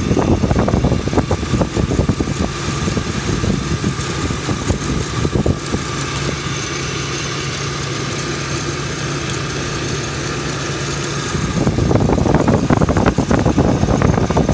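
Car engine idling, heard up close in the open engine bay while the alternator charges under the added load of the lights. It grows louder and rougher in the last couple of seconds.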